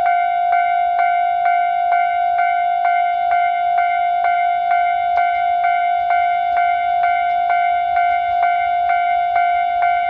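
Japanese railway level-crossing warning bell ringing without a break, a steady electronic ding repeating about twice a second. It signals that a train is approaching and the crossing is closed.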